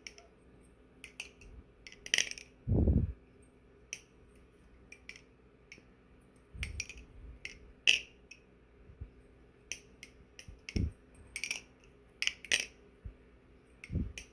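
NRB Vortex balisong being flipped, its metal handles and blade clicking sharply at irregular moments as they swing and meet. A dull thump about three seconds in and a softer one near eleven seconds.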